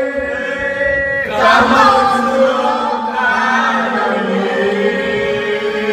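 A group of people singing together at karaoke, several voices holding long notes in chorus; the singing swells louder about a second in.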